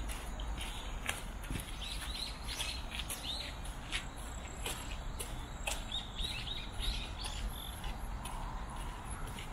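Small birds chirping in quick, short chirps, in bunches about two seconds in and again around six to seven seconds, over a steady low rumble.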